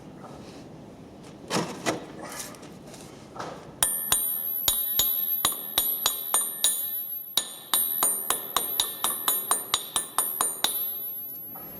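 A hammer striking steel, a couple of dozen sharp ringing blows one after another, quickening near the end. A few duller knocks of handling metal come before them.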